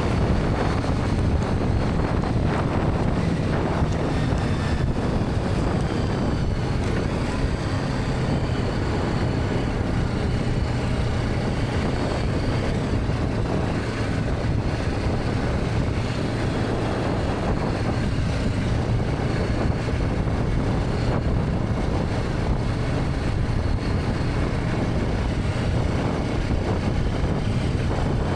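BMW G310R's single-cylinder engine running at a steady cruise while being ridden, with wind rushing over the microphone.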